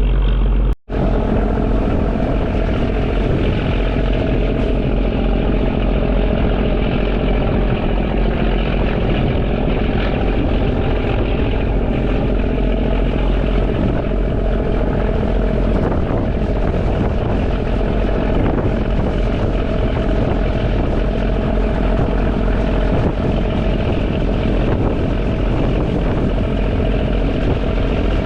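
Sightseeing boat's engine running steadily with a low, even drone. The sound cuts out for an instant about a second in.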